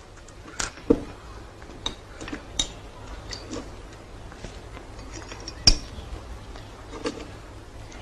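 A metal spoon clinking and tapping against a glass and dishes at a table in scattered light strikes, with two sharper knocks, one about a second in and one past halfway.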